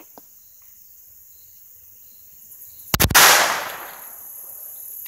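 A single pistol shot about three seconds in, its sharp report followed by a ringing tail that dies away over about a second.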